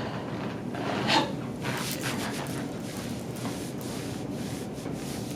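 Hands pressing and rubbing on the patient's back and clothing on the treatment table during a prone chiropractic adjustment timed to her exhale, with one brief louder sound about a second in.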